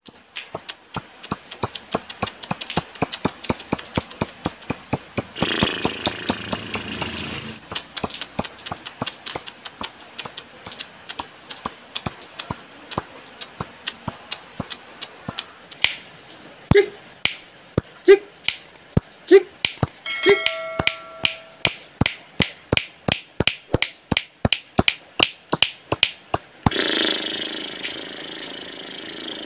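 Lovebird calling in a rapid series of sharp, high clicking chirps (the 'ngetik' call), about three to four a second, turning into a denser continuous stretch near the end.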